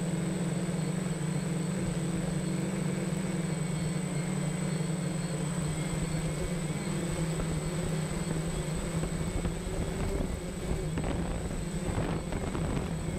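Steady hum of a DJI Phantom quadcopter's motors and propellers, picked up by the GoPro Hero 4 camera mounted on the drone itself, with a thin high whine over it. The sound turns rougher with some buffeting in the last few seconds.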